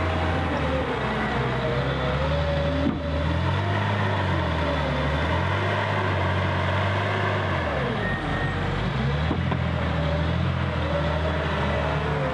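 Liebherr L566 wheel loader's diesel engine running as the loader drives and turns. Over the steady low engine drone a higher whine wavers up and down, and the pitch dips and comes back up about eight seconds in.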